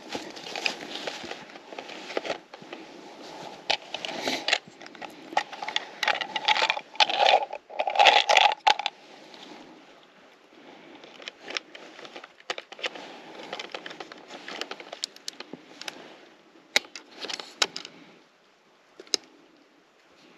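Irregular rustling, scraping and clicking, as of things being handled up close, loudest around eight seconds in and sparser in the second half.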